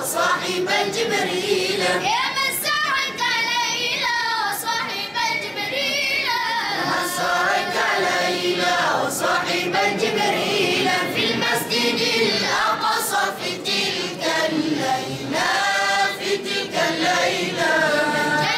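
A choir of boys singing an Arabic qaseedah (devotional song) together, in long held lines with wavering, ornamented pitch.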